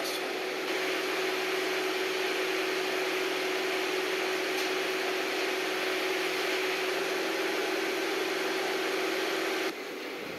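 Steady whirring machine noise with a constant low hum, cutting off abruptly near the end.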